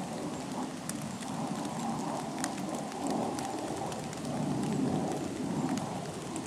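Light rain falling on wet rock and leaves: a steady hiss with scattered clicks of single drops.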